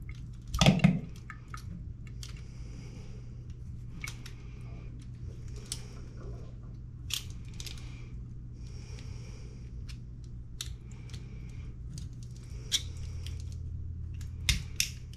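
Scattered small metal clicks and scrapes of a pliers multi-tool picking at a faucet aerator to pull off its screen and flow restrictor, with a brief louder bump about a second in. A steady low hum underlies it.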